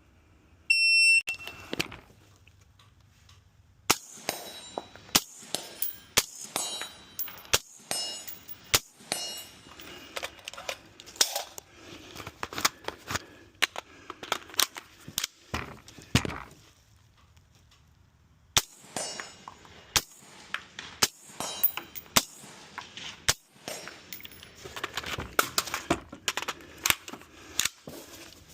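Shot-timer beep about a second in, then a long string of gunshots fired at a steady quick pace, with metallic rings from hits on steel targets. The shots pause for about two seconds midway, then pick up again.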